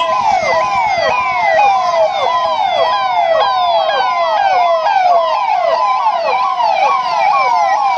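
Police vehicle sirens sounding continuously, more than one overlapping out of step, each rising, holding briefly at the top and falling again in a fast repeating yelp about twice a second.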